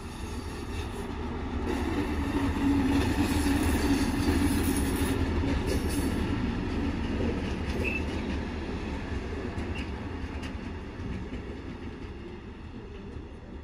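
Diesel locomotive V270.09 hauling a short ballast train past, its engine and running wheels growing louder to a peak about four seconds in, then fading as it moves away.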